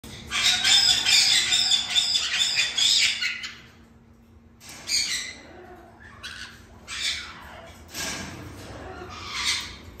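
White-bellied caique parrots screeching. A long, harsh, loud run of screeches lasts the first three seconds or so, then shorter squawks follow about once a second.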